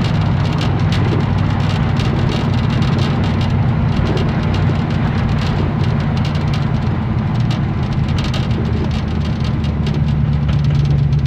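1982 Chevrolet C10 pickup cruising, heard from inside the cab: a steady low engine drone under an even hiss of tyre and wind noise.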